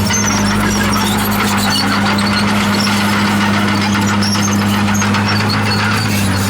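Komatsu D51PX bulldozer's diesel engine running at a steady speed, with scattered short high-pitched squeaks over the drone.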